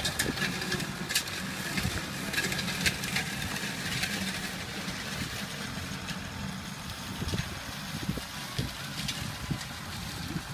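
Tractor engine running steadily while pulling a disc harrow through tilled soil, with scattered sharp clicks and knocks over the hum.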